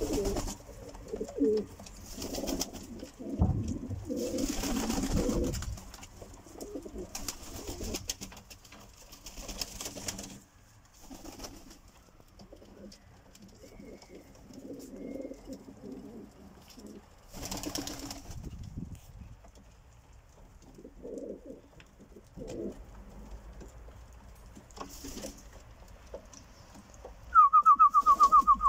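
Domestic pigeons (Polish show homers and Silesian shield pigeons) cooing on and off in their loft, with a few short noisy bursts between the calls. About a second and a half before the end, a loud, fast-pulsing whistle cuts in, louder than the cooing.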